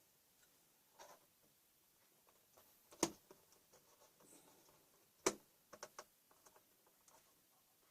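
Sharp clicks and light tapping from a laptop's plastic parts being handled during disassembly: two loud clicks about two seconds apart, then a quick cluster of smaller clicks.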